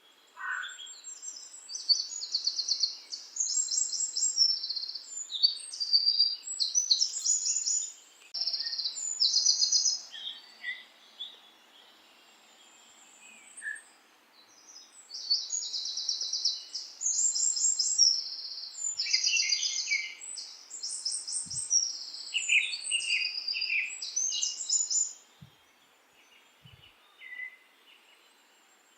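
Birds singing: bouts of rapid, high chirping trills follow one another, with a couple of quieter pauses.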